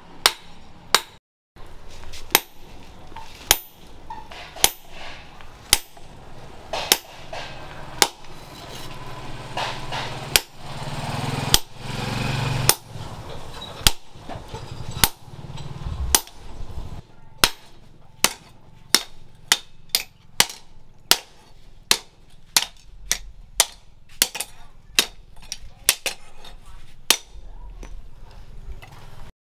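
Hammer blows on hot steel on an anvil, each a sharp ringing strike. They come about once a second at first and quicken to about two a second in the second half, some of them driving a chisel through the hot leaf-spring blade. A rushing noise swells in the middle.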